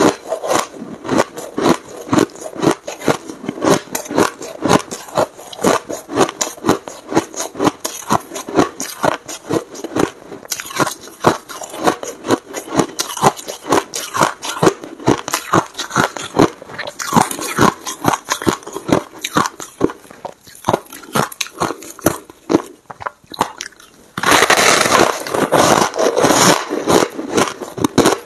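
Close-miked chewing of crunchy, powdery, snow-like ice, with steady crunches about three a second. About 24 seconds in comes a louder, unbroken crumbling of ice as a big chunk is pulled from the pile, before the crunching resumes.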